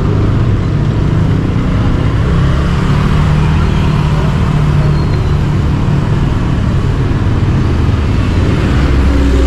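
Road vehicle running steadily in city traffic, its engine a low continuous hum under road and traffic noise.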